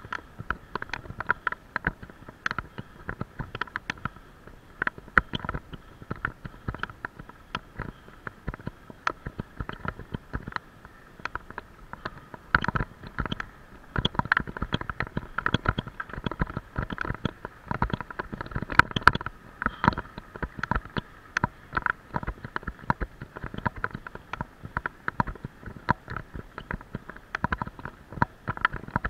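Irregular knocks and rattles, several a second, from a bicycle-mounted camera jolted by a rough paved road while riding.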